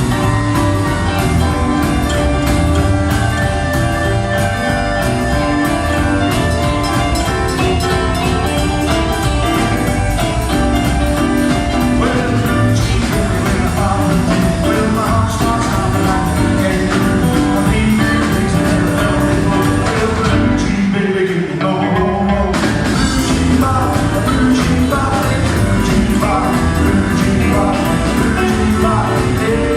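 Rockabilly band playing live, with a drum kit keeping a fast steady beat under guitar and some singing. About twenty seconds in, the drums and bass drop out for a moment, a short stop-time break, before the full band comes back in.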